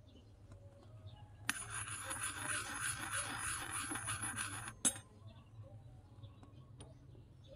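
Small metal spoon scraping around the inside of an empty miniature metal wok for about three seconds, with a clink as it touches down and a sharper clink as it lifts off.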